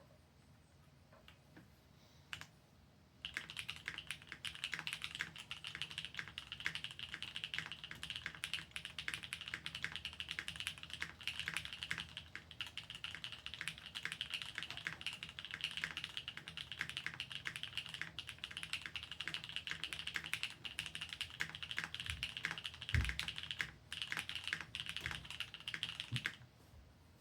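Fast, continuous typing on a Gok 7V mechanical keyboard with Gateron Cream Soda switches, mounted plateless. A lone keystroke comes a couple of seconds in, then rapid clatter starts about three seconds in and runs until shortly before the end, with a short pause and one deeper knock near the end.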